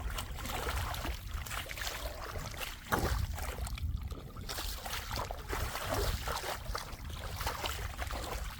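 Floodwater sloshing and splashing in irregular strokes over a low rumble, with a sudden louder splash about three seconds in.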